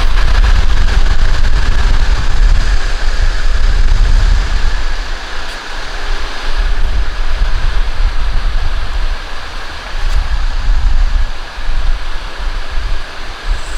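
Turbocharged Honda B-series engine running loudly on its first startup after the all-wheel-drive conversion, a rough, fluctuating low rumble.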